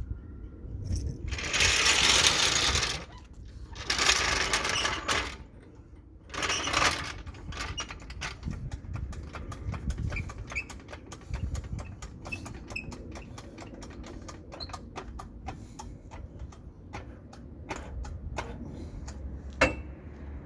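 Three hissing bursts of one to two seconds each, then a long run of light metallic clicks, clinks and taps from hand tools working on metal parts, with one sharper click near the end.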